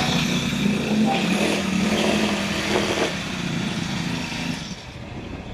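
GX35 four-stroke brush cutter engine running at a steady idle, then cutting out about four and a half seconds in.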